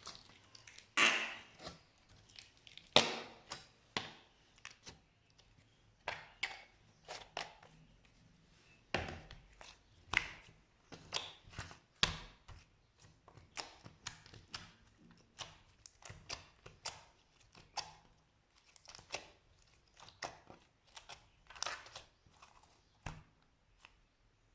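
Slime being pressed and played with by hand, giving an irregular run of sharp wet clicks and pops with a few longer squelches.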